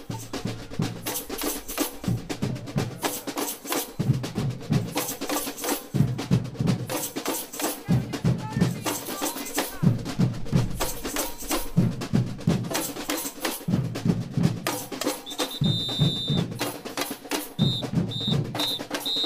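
Samba bateria drum band playing a street rhythm: dense snare and hand-drum strokes over heavy surdo bass drum phrases repeating about every two seconds. About three-quarters of the way in, a whistle blows one long blast, then four short blasts near the end, the kind of whistle call a samba leader uses to cue the band.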